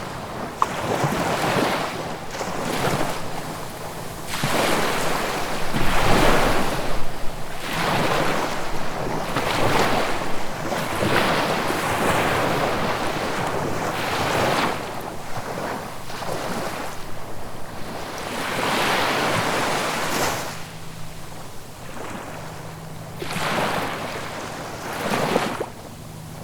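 Sea waves breaking and washing up the shore one after another, each swelling and falling back every second or two in a continuous rushing wash.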